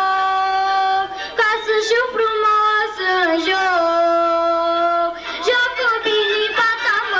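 Schoolchildren singing a Romanian folk song, holding long notes near the start and again in the middle, between shorter phrases.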